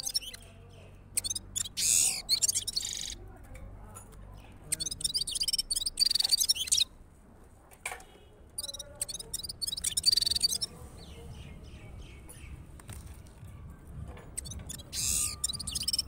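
Caged gulsar, a small streaked finch, singing in high twittering phrases: four bursts of song of a second or two each, with short pauses between.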